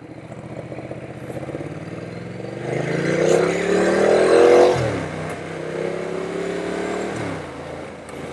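Ducati motorcycle engine accelerating through the gears: the revs climb, fall sharply at an upshift a little past halfway, climb again and fall at a second upshift near the end, with wind noise underneath.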